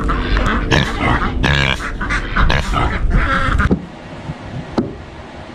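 Pig grunting and oinking in short, irregular calls, which stop abruptly about three and a half seconds in, leaving only quiet background.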